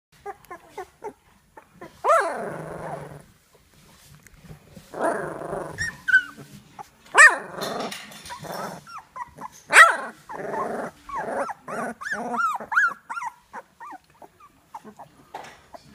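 A litter of young puppies growling, yipping and squealing as they tussle, in short rough bursts and quick high calls. Two sharp yelps, about seven and ten seconds in, are the loudest.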